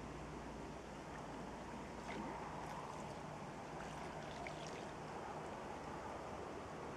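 Faint, steady outdoor background hiss with a few brief, faint high chirps in the middle.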